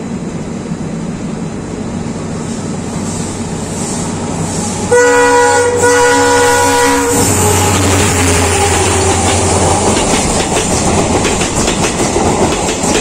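A passing train: about five seconds in, its locomotive horn sounds two blasts. Then the locomotive and coaches run past with a low engine hum and the wheels clacking over the rail joints.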